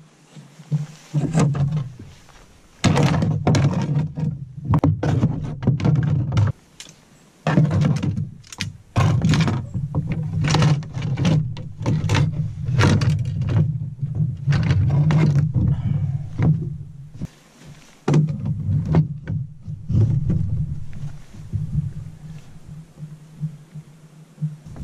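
Irregular knocks, clunks and rattles of gear being handled and fastened in a canoe as it is readied to be carried over a portage.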